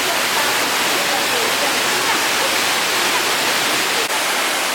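Steady, loud rushing of water from a mountain waterfall.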